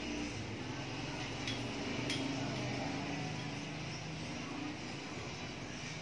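Light clicks and knocks of a ring light being turned and adjusted on its tripod stand, over a steady background hiss.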